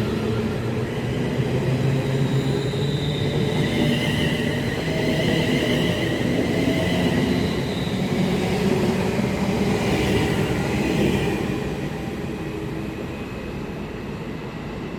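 London Northwestern Railway Class 350 Desiro electric multiple unit pulling away, with a rumble and a whine of shifting pitch from its traction equipment. It fades as the train moves off, from about twelve seconds in.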